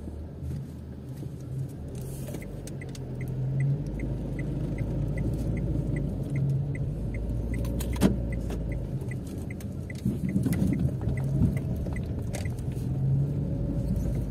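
Car cabin while driving on wet streets: a steady low engine and road rumble. From a couple of seconds in until near the end, the dashboard gives a run of short, high, evenly spaced ticks, about three a second. A sharp click comes about two thirds of the way through.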